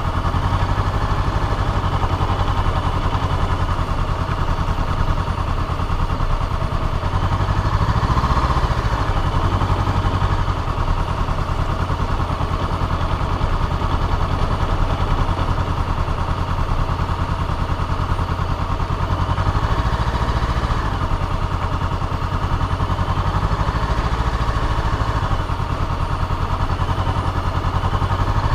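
Honda CBR500R's parallel-twin engine running at low speed. Its revs rise briefly about eight seconds in and again around twenty seconds in.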